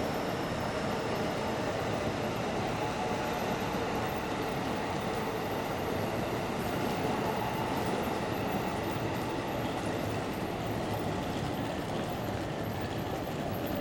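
JR East E531 series commuter electric train running past on the rails, a steady wheel-on-rail noise with no sudden events.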